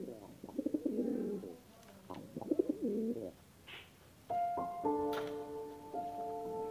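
Lakka (Indian fantail) pigeons cooing, three low rolling coos in the first three seconds or so. About four seconds in, held electronic-keyboard notes come in and build into a steady chord.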